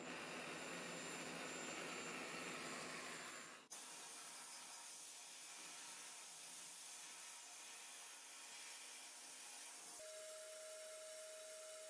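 Sandblasting gun hissing steadily inside a blast cabinet, stripping paint and rust from a stamped-steel toy plane part. The hiss changes abruptly about a third of the way in, and a steady tone joins near the end.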